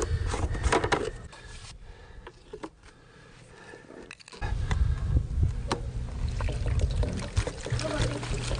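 Liquid fuel pouring from a metal can through a funnel into a red plastic fuel container, starting about four seconds in after some handling of the cans.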